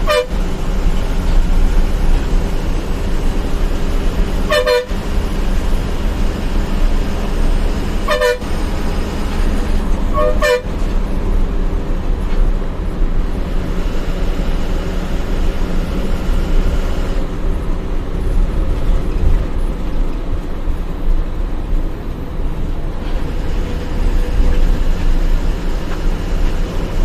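Steady low rumble of a bus running along the highway, with three short horn toots, about 5, 8 and 10 seconds in.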